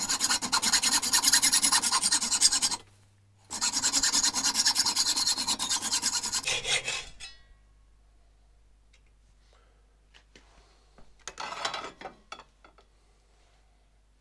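Hand hacksaw cutting through a small threaded steel repair insert held in a bench vice: two spells of rapid sawing, each about three seconds long, with a short pause between, stopping once the piece is cut through. A brief, softer scrape follows about eleven seconds in.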